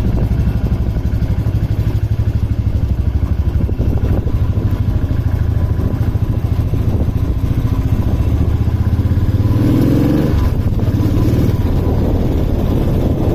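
Motorcycle engine running steadily with the bike under way; its note rises about nine seconds in as it accelerates, then falls back.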